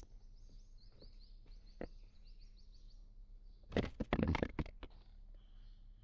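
Pliers clicking and rattling against a plastic blade-fuse in a car's fuse box as the fuse is gripped and pulled out, a short cluster of sharp clicks about four seconds in. Faint, quick, high chirps repeat in the background through the first half.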